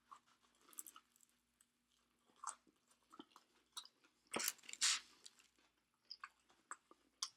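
Close-miked mouth sounds of a person chewing Chinese takeout food: scattered soft smacks and clicks, with a louder cluster of chewing about four and a half seconds in.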